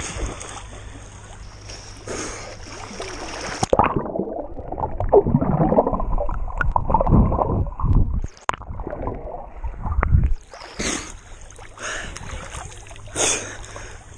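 Lake water sloshing and splashing around a camera at the surface. About four seconds in the camera goes under and the sound turns muffled and gurgling, louder and dull, until it comes back up about ten seconds in and the splashing returns.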